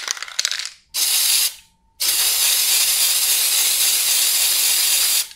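Aerosol spray-paint can: rattling clicks that die away in the first second, a short spray burst about a second in, then a long steady hiss of spraying from about two seconds in until just before the end.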